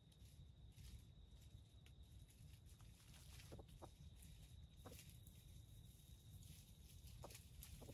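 Near silence: a few soft, scattered crackles of dry leaves as a junglefowl rooster steps and pecks in the leaf litter, over a faint low rumble and a faint steady high tone.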